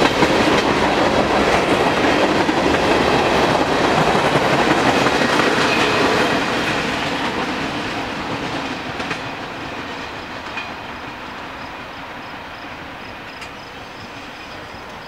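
Freight cars of a manifest train, tank cars and refrigerated boxcars, rolling past with a clickety-clack of steel wheels over the rails. The sound is loud until about six seconds in, then fades steadily as the end of the train draws away.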